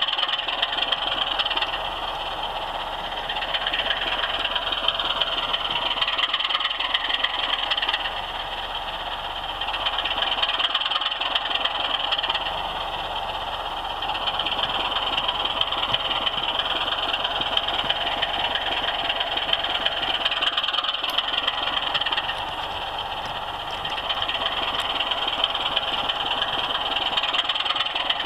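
OO gauge model train running on its track, heard from the camera wagon riding on it: a steady whirring rattle of the small electric motor and wheels on the rails. It dips and swells in loudness every few seconds.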